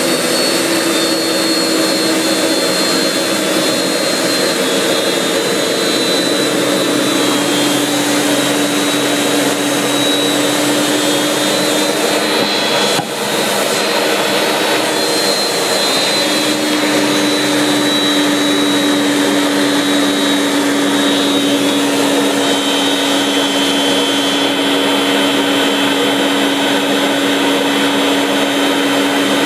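BAC Strikemaster's Rolls-Royce Viper turbojet running at taxi power, heard from the cockpit: a steady rushing noise with a high turbine whine and a lower hum that shift slightly in pitch. There is a brief dip in level about halfway through.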